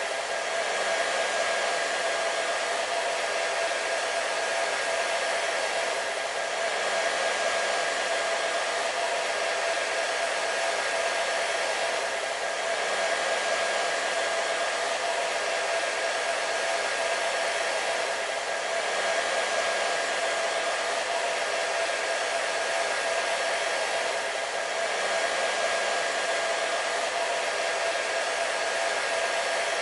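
Hair dryer running steadily: an even airy hiss with a motor whine in it, swelling slightly about every six seconds.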